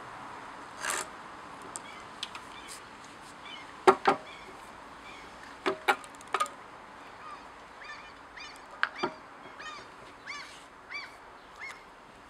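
Knocks and clunks of a Stihl 020 chainsaw, engine off, being handled and set down on a stone slab. In the second half a bird calls repeatedly in short, rising-and-falling notes.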